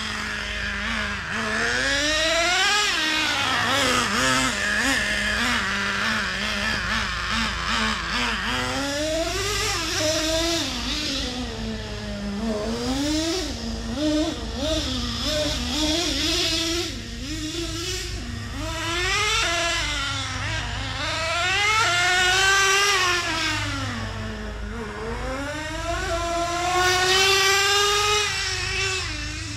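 Traxxas Revo 3.3 nitro RC truck's small two-stroke glow engine revving hard and falling back again and again, its high pitch rising and dropping every few seconds as the truck accelerates and slows.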